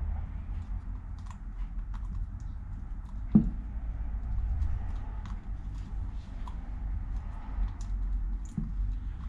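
Small clicks and taps of brake caliper parts being handled during a seal rebuild, with one louder knock about three and a half seconds in, over a steady low rumble.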